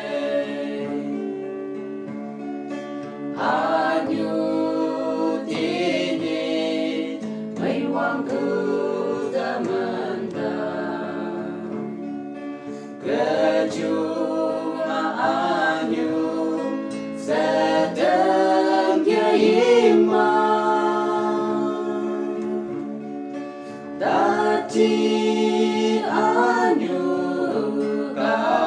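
A group of voices singing a song together in harmony, in sung phrases a few seconds long with brief pauses between them.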